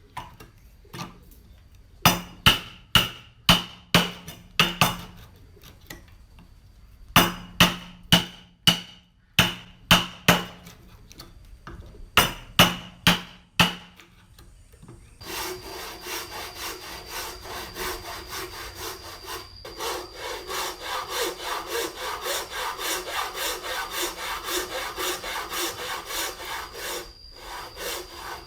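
Hammer blows on timber-cutting tools in short groups of three to six strikes, each with a brief ringing note. About halfway through, a handsaw takes over, cutting wood with quick, even strokes.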